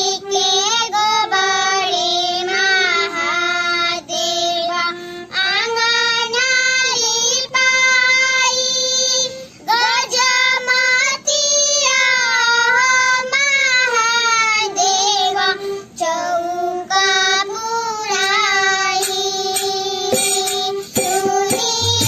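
Two young girls singing a Bhojpuri auspicious folk song (a wedding song to Mahadev) together, in phrases with short breath pauses between lines, to a harmonium accompaniment.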